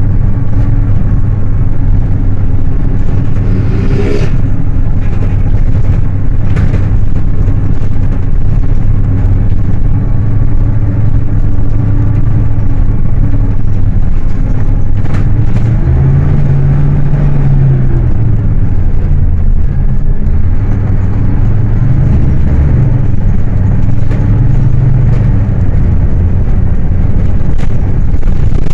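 Scania K310UA city bus's five-cylinder diesel engine running under way: a steady, loud drone whose pitch rises and falls twice in the second half as the bus pulls away and speeds up. A few sharp knocks, a body or road rattle, come through over it.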